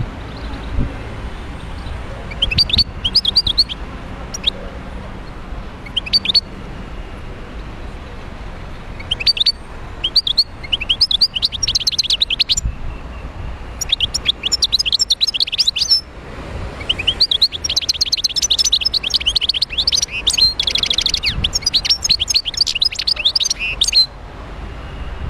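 A caged wild-caught European goldfinch singing: rapid, high twittering phrases with fast trills, in bursts broken by short pauses. The longest, densest run comes in the second half, over a steady low background noise.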